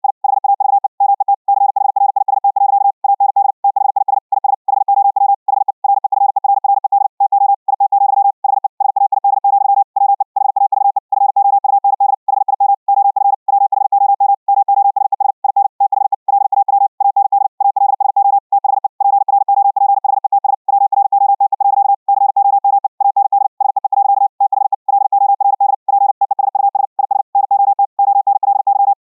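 High-speed Morse code (CW) at about 60 words per minute: a single steady mid-pitched tone keyed on and off very rapidly, without pause. The tone is heard after a round trip through a Vorbis-encoded RTP stream over the internet.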